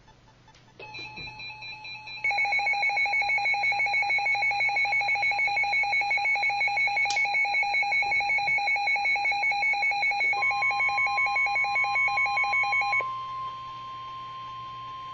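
An electronic alert alarm trilling in rapid beeps, quiet for the first two seconds and then loud, stopping about thirteen seconds in. About ten seconds in, a steady single-pitch tone begins and carries on alone at the end: the NOAA Weather Radio 1050 Hz warning alarm tone that announces a National Weather Service warning broadcast.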